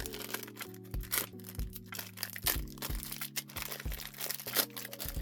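Background music: a light instrumental track with sustained low notes and a regular beat.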